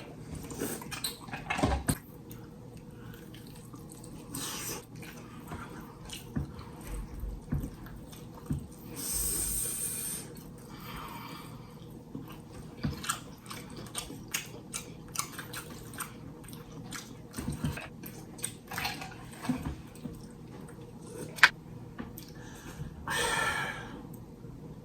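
Close-miked eating sounds of fried chicken: wet chewing and lip smacks with scattered sharp clicks, and a couple of longer hissing slurps or breaths, one about nine seconds in and one near the end.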